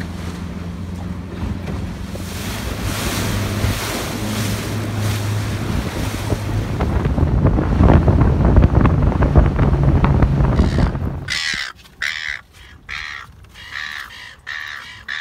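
Yamaha outboard motor running with the boat under way, over heavy wind on the microphone and water rushing past the hull. About eleven seconds in this stops abruptly and gives way to birds calling in quick succession.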